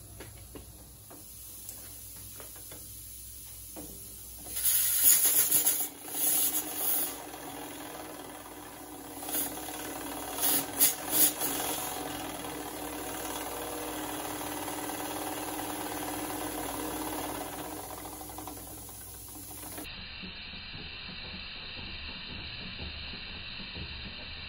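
Weeden No. 20 toy steam engine test-run on compressed air: air escapes in loud hissing bursts about five and ten seconds in, over the small engine's steady running. The sound changes abruptly about twenty seconds in.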